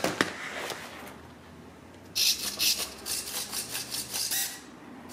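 Micro servos in a foam RC plane buzzing in quick, jerky bursts as the control surfaces are wiggled back and forth, starting about two seconds in.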